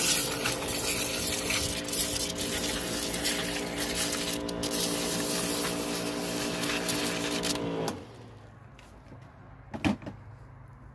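Pressure washer wand spraying into a bucket of soapy water to whip up suds: a loud, steady hiss over a steady hum that cuts off suddenly about eight seconds in. A single short knock follows near the end.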